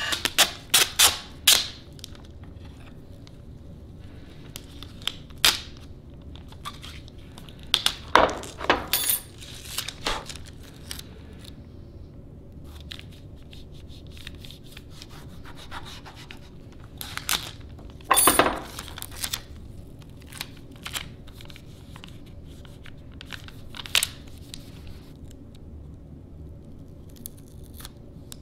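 Tyvek tape being peeled, torn and pressed down by hand: irregular short crackling, tearing and rubbing sounds with quiet stretches between them.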